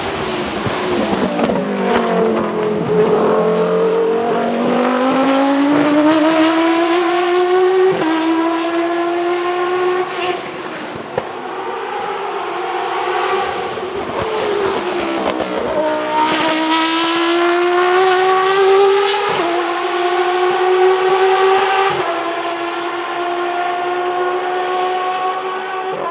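Dallara SP1 prototype's Judd GV4 4.0-litre V10 at racing revs, high-pitched. It sweeps past close with a sharp fall in pitch, then pulls hard through the gears, the pitch climbing and dropping suddenly at each of several upshifts.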